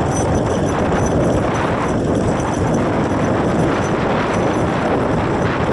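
Steady, loud rumbling noise from a moving motorcycle, with wind and engine noise blended on the microphone and no clear engine note standing out.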